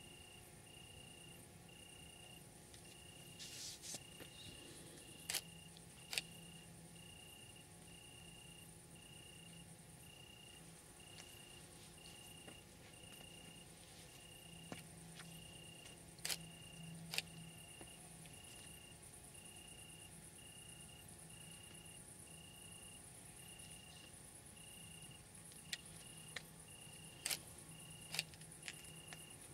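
Crickets chirping faintly: one regular chirp about one and a half times a second over a steady high-pitched trill, with a few sharp clicks scattered through.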